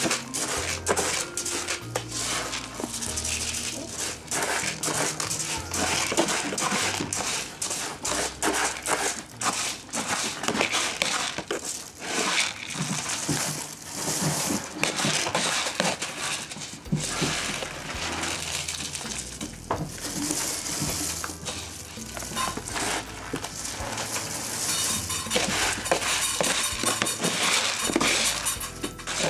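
Small cat toy balls rattling and clattering on a wooden floor as a kitten bats them about, many small clicks over background music.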